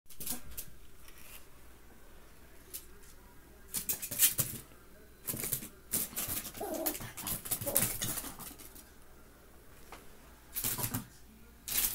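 A cat and a miniature Chihuahua play-fighting on a hardwood floor: bursts of scuffling, with paws and claws skittering on the boards. A few short, low animal vocal sounds come in around the middle.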